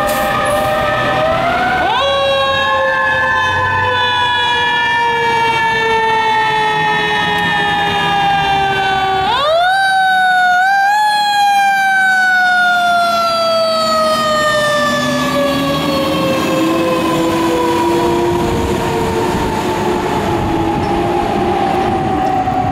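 Fire apparatus sirens wailing. A siren winds up quickly about two seconds in and again about nine seconds in, and each time its pitch falls slowly over several seconds. Near the end a second, lower siren tone rises slowly.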